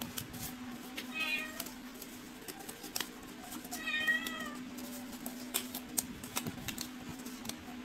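A cat meows twice: a short meow about a second in and a longer, wavering one about four seconds in. Between them come scattered small clicks and smacks of a cat eating from a plastic bowl, over a steady low hum.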